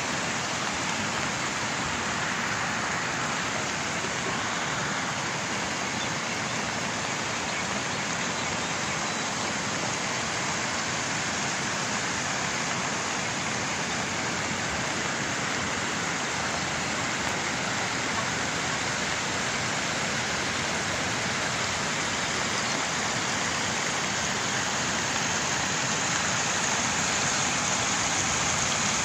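Heavy rain and muddy floodwater rushing across flooded paddy terraces: a steady, even hiss that does not let up.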